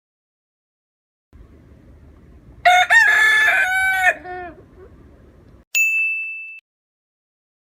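A rooster crows once, a loud call of nearly two seconds that drops in pitch at the end, over faint background noise. About a second later comes a short, bright, high ding.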